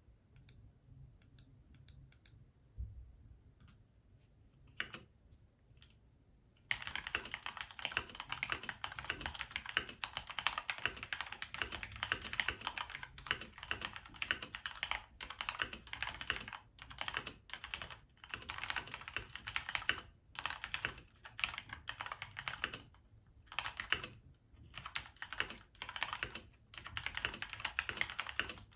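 Typing on a custom TKL mechanical keyboard built from a KPrepublic XD87 kit. A few scattered key presses come first, then steady fast typing from about seven seconds in.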